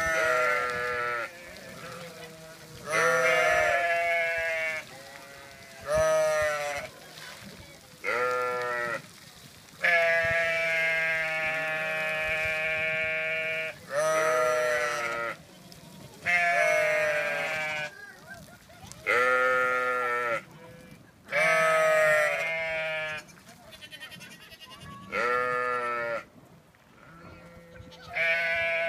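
Jacob four-horned sheep and Tennessee fainting goats bleating, one call after another every couple of seconds, with one call drawn out for about four seconds in the middle.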